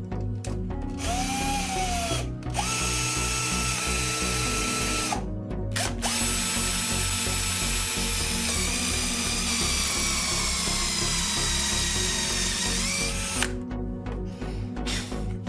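Electric drill running with a bit in several bursts, the longest about seven seconds, its whine dropping in pitch as it loads up and rising again just before it stops. Background music with a steady beat underneath.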